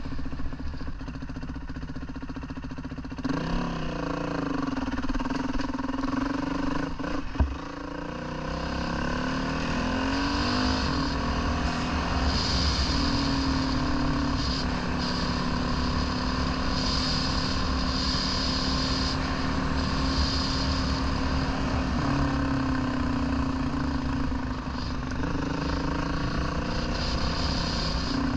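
Dirt bike engine running under way, its pitch rising and falling as it revs and changes gear, with one sharp knock about seven seconds in.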